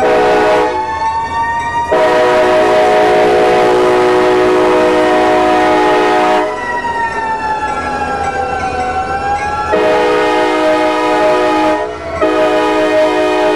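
CSX GP40-2 locomotive's air horn sounding a chord in several blasts: a short one at the start, a long one of about four seconds, then two more near the end. Under and between the blasts a Federal Q mechanical siren wails, its pitch falling and then rising again.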